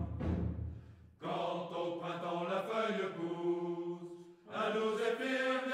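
Background choral music: voices singing slow, long-held notes, with two brief pauses between phrases.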